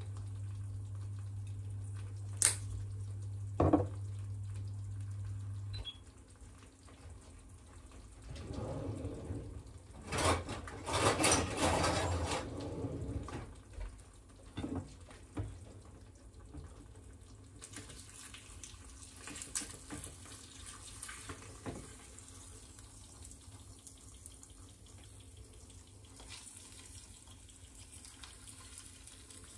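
Kitchen sounds: a steady low hum that stops about six seconds in, two sharp clicks, then a few seconds of running water from a tap, a few knocks of dishes, and a faint steady hiss of eggs frying in a pan.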